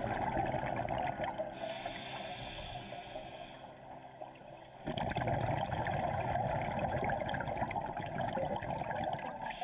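Scuba diver breathing through a regulator underwater: a hissing inhale about a second and a half in, then a longer, louder rush of exhaled bubbles gurgling from about five seconds in.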